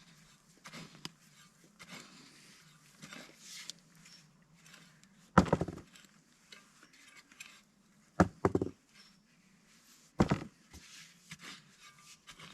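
Potatoes being dug out of garden soil: soft rustling and scraping in the dirt, broken by a few loud short thuds of the digging tool, one a little before halfway, two in quick succession later, and one more near the end.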